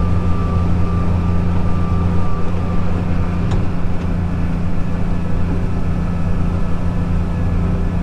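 Tractor engine running at a steady low drone, heard from inside its cab, with a combine harvesting corn alongside.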